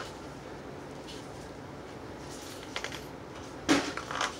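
A metal spoon scraping and knocking inside a small plastic funnel as the filling is pushed down into a balloon: a few faint clicks, then one louder knock near the end.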